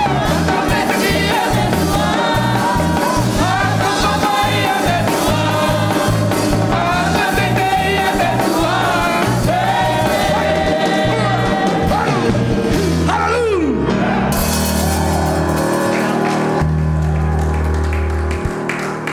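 Live group singing of an upbeat hymn, accompanied by ukulele, a wooden slit drum beaten with a stick, and a band with a steady bass line. About two-thirds of the way in, the singing slides down in pitch and the music ends on long held chords that stop just before the end.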